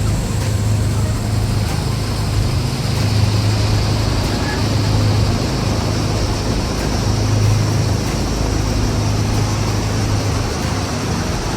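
Steady low machine hum under an even rushing noise, without clear breaks.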